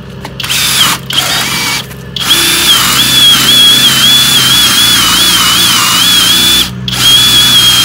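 FLEX FX1271T 24V cordless drill boring a 30 mm wood auger bit into a thick wooden block. It starts with two short bursts on the trigger, then runs steadily under load, its motor whine wavering as the bit digs in. It stops briefly near the end and starts again.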